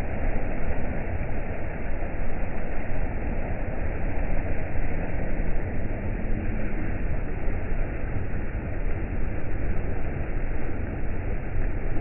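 Steady, dull rushing of a small river cascade pouring over boulders into a pool.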